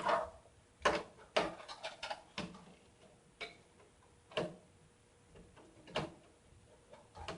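Scattered light clicks and knocks of a graphics card and PC case parts being handled and lined up with an expansion slot, about eight separate taps spread irregularly over several seconds.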